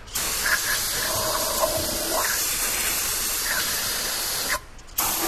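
Aerosol can of non-chlorinated brake parts cleaner spraying onto the inside of a transmission case to clean it: one long continuous hiss of about four and a half seconds, then a short second burst near the end.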